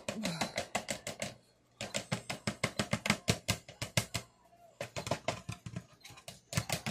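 Rapid, sharp clicking, about eight clicks a second, in runs broken by short pauses.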